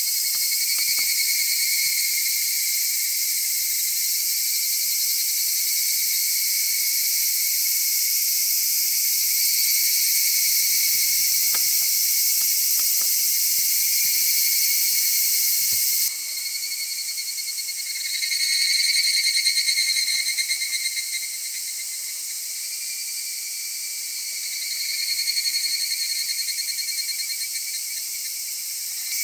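Summer cicada chorus, with higurashi (evening cicadas) calling in swells that rise and fade, twice in the second half. The chorus drops suddenly in level a little past halfway, and a few faint knocks come about a third of the way in.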